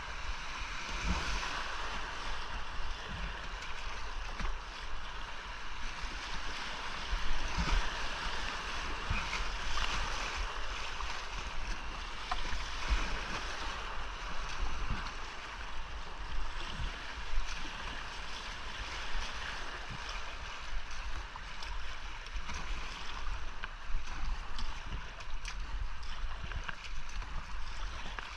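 Whitewater creek rapids rushing steadily, with irregular low thumps.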